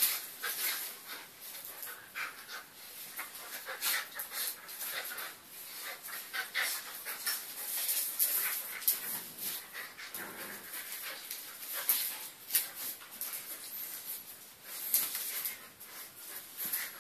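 Eurasier puppy and adult dog play-wrestling: panting, with many quick clicks and scuffles of their claws scrabbling on a tiled floor.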